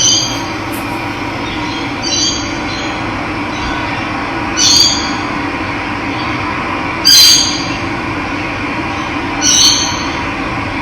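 Steady rush of running water, with a bird giving a short high call about every two and a half seconds, five times.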